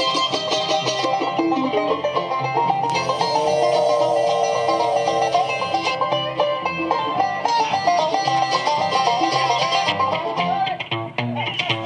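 Live bluegrass band playing an instrumental break, with fast banjo picking out front over guitar and bass, a held, sliding melody line in the middle, and a brief drop in loudness near the end.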